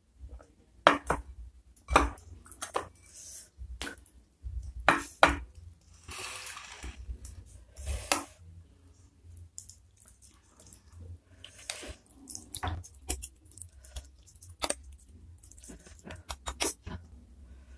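A metal spoon and fork clinking and scraping against a ceramic bowl while cutting up meatballs in broth. Sharp clinks come at irregular intervals, the loudest in the first few seconds, with a hiss-like noise lasting about a second around six seconds in.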